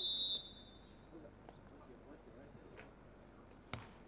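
Referee's whistle: one short, steady, high blast to start the point. Near the end comes a single sharp smack, a hand striking the ball for the serve.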